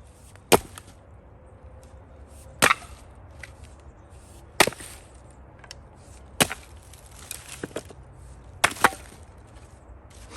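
Axe strikes splitting firewood: five sharp blows about two seconds apart, the last followed at once by a second knock.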